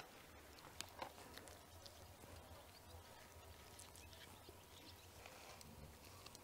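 Near silence with a few faint, scattered soft taps and clicks of orange and lemon slices being picked up from a wooden cutting board and laid onto a raw salmon.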